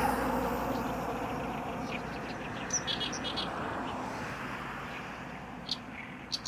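Great reed warbler song: short, harsh, sharply repeated notes, in a cluster about three seconds in and again near the end. Under it, a broad rumbling noise fades away over the first few seconds.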